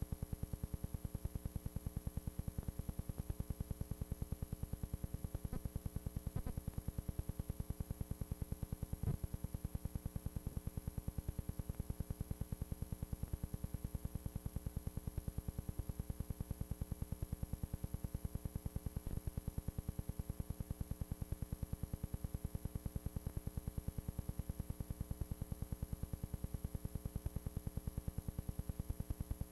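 Steady electrical hum and buzz from the recording, with a fast, even pulsing several times a second and a faint high-pitched whine; no sound of the game is heard.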